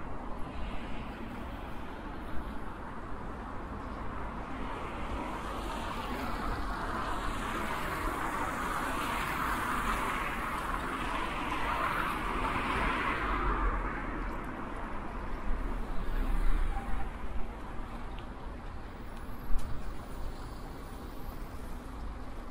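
A car passing on the road, its tyre and engine noise swelling and then fading away, over a steady low wind rumble on the microphone. A couple of sharp clicks come near the end.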